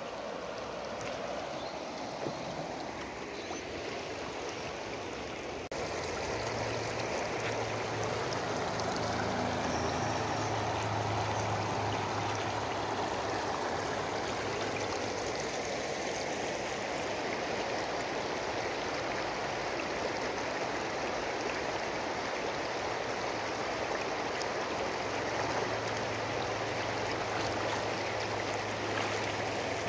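River water running over a shallow cobble and gravel riffle at the river's edge, a steady rushing that gets a little louder about six seconds in.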